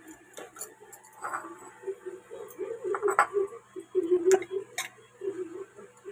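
Metal spoon clinking and scraping against cooking utensils, with a few sharp clinks, the loudest about three and four seconds in, over a low wavering hum.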